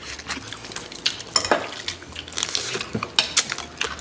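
Close-miked eating at the table: irregular clinks of cutlery against dishes mixed with wet smacking as soy-marinated raw crab is eaten.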